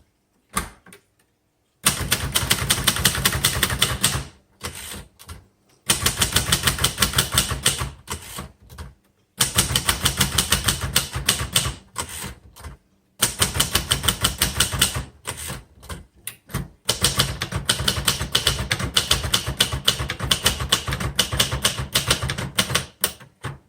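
Sears Cutlass manual typewriter (built for Sears by Royal) being typed on: quick runs of key strikes, several to the second, broken by short pauses.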